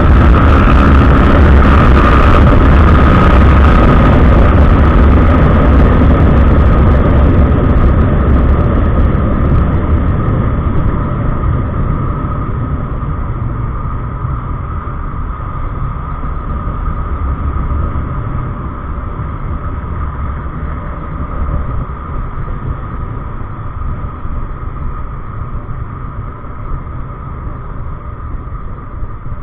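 Kawasaki ER-6n's parallel-twin engine running with wind rush while riding. The sound falls away over the first ten seconds or so as the hiss dies out, then settles to a lower steady engine note, as when the motorcycle slows down.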